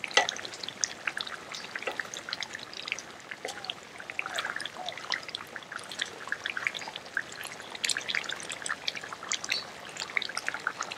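Thick curry in a frying pan bubbling and popping irregularly as it simmers over a gas burner, stirred with a wooden spatula.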